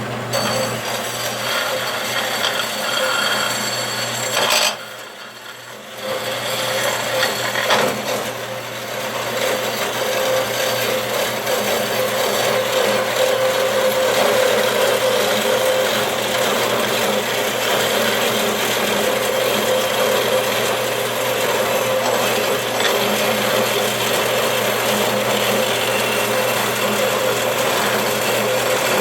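Band saw cutting through thick brass stock fed by hand: a steady rasping cut over the hum of the saw's motor. The sound drops away briefly about five seconds in, then carries on.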